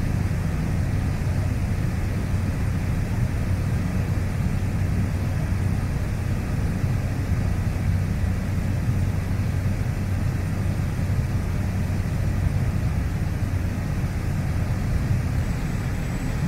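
Cabin noise of a small high-wing plane in flight: the engine and airflow make a loud, steady drone with a strong low hum.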